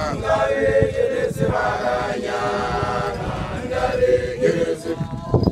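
Group of Basotho male initiates chanting together in unison, holding long notes that shift slowly in pitch.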